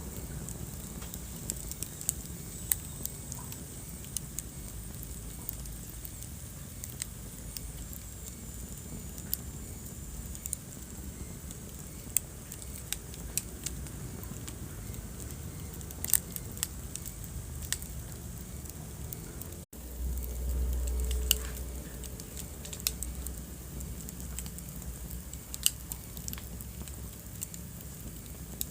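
Wood fire crackling in a fireplace: irregular sharp pops and snaps over a low, steady rumble of flames. About two-thirds through, the sound cuts out for an instant and the low rumble then swells for about two seconds.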